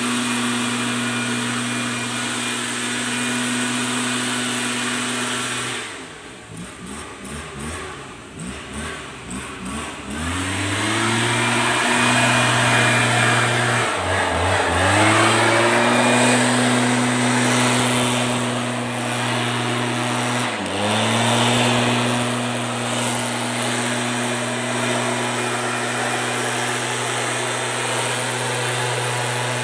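Stihl backpack leaf blower running at high throttle, blowing air. About six seconds in it drops to idle for a few seconds, then revs back up. Twice more later on the throttle is briefly let off and opened again.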